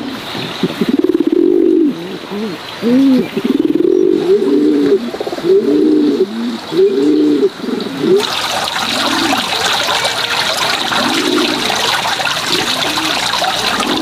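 Domestic pigeons cooing over and over, low rising-and-falling coos from several birds. About eight seconds in, a steady hiss comes in and the cooing turns fainter.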